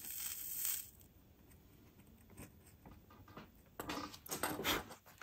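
Faint sizzle of flux and solder under a hot soldering iron tip, then, about four seconds in, a quick run of light metallic clinks as the iron is lifted away and set down.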